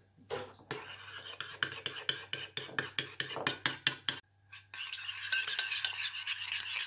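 A metal spoon stirring a thick mustard and fromage blanc vinaigrette in a ceramic mug, clinking rapidly against the side about five times a second. From about five seconds in it changes to a steadier scraping as the spoon scrapes the dressing out of the mug.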